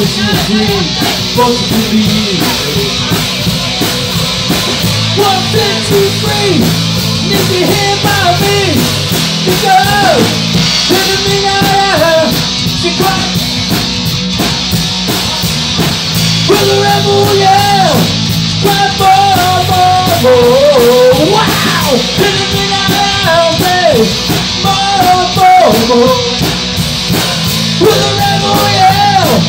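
Live rock band playing loud: electric guitars and drum kit, with a singer's voice carrying the melody.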